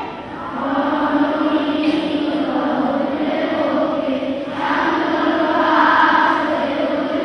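A group of voices singing together in long held notes, choir-like, with a new phrase swelling up about halfway through.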